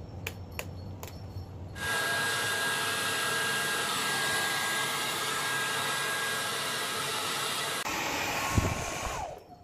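Handheld hair dryer blowing on a freshly bathed dog's wet coat, a steady rush of air with a thin whine through it. It comes on abruptly about two seconds in, changes slightly near the end, where there is a low thump, and stops just before the end.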